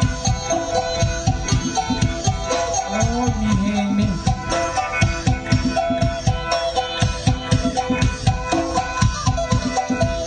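Isan traditional folk music for the mo yao ritual dance: a fast, steady drum beat under sustained held notes.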